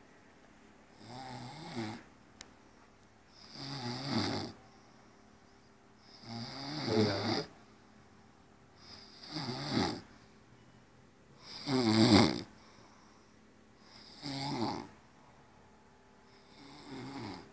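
A person snoring, about seven snores roughly two and a half seconds apart, each swelling louder and then breaking off sharply.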